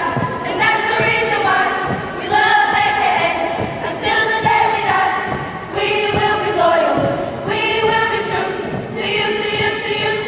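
A group of women singing a chant together in unison, in phrases of about two seconds each, with low thuds of their steps underneath.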